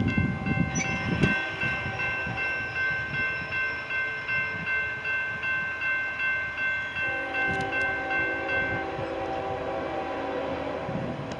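Norfolk Southern freight train of autorack cars passing at speed: a steady rolling roar with the wheels clacking rhythmically over rail joints, heaviest in the first second. Several steady high tones sound over it and stop about nine seconds in.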